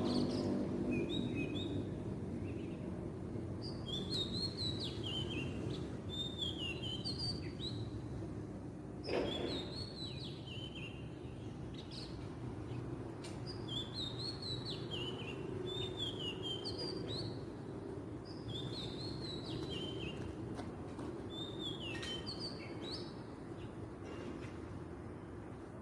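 Oriental magpie-robin singing: short phrases of whistled notes sliding up and down, repeated every second or two, over a steady low background rumble. A single brief thump about nine seconds in.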